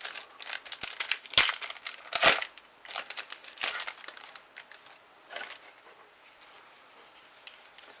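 Foil trading-card booster pack being torn open and crinkled by gloved hands, with a dense run of sharp crackling rips that are loudest about one and a half and two and a quarter seconds in. The crinkling dies down after about four seconds, leaving one last rustle.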